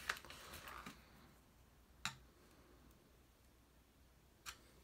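Faint, sharp clicks of small brass .22LR cartridges being handled and set on the metal pan of a digital pocket scale: three light clicks about two seconds apart over near silence.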